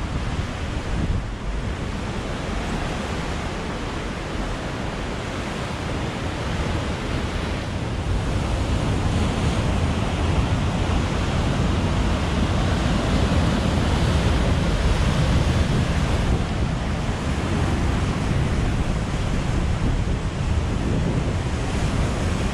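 Steady rushing of wind buffeting the microphone, mixed with surf, getting a little louder about eight seconds in.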